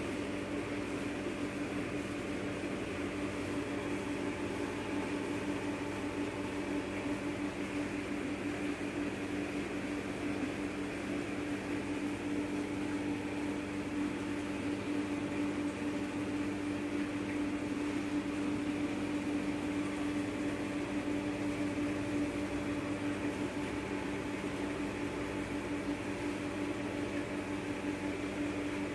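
A steady electrical hum, like a fan or appliance motor running, holding several fixed tones without change.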